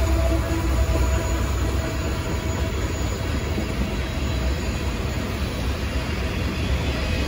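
CSX freight train's cars, mostly tank cars, rolling past close by: a steady rumble of steel wheels on rail.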